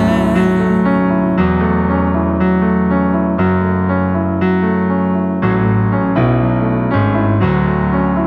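Piano playing a steady pulse of repeated notes and chords, about two a second, in an instrumental passage of a minimal-style song.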